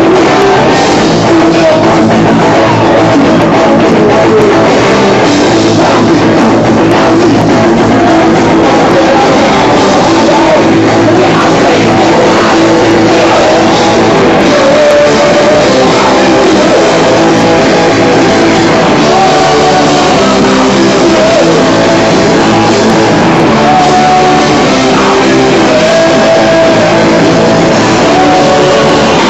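Loud rock music: a band playing electric guitar and drum kit, with singing.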